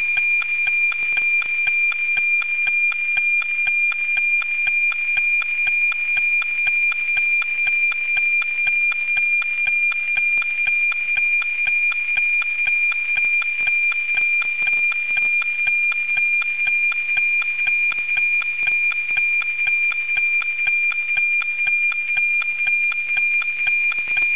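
NOAA-19 APT weather-satellite signal, FM-demodulated from 137.1 MHz by an RTL-SDR receiver: a steady 2400 Hz tone with a rhythmic tick-tock about twice a second, the line sync of the image being sent, over a faint hiss.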